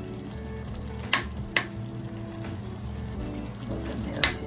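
Chicken in thick tamarind sauce sizzling in a pot as a piece of butter melts into it, with a metal spoon clicking against the pot three times.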